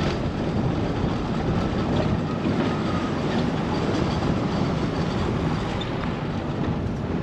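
Steady engine and road noise heard from inside a moving multicab, a small open-backed public utility minivan.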